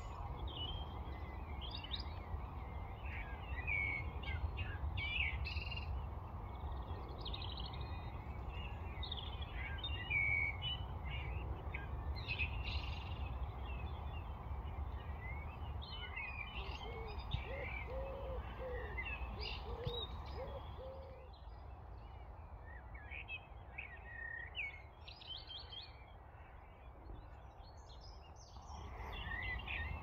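Wild songbirds chirping and singing, with a run of about seven low hooting notes around the middle, over a steady low rumble.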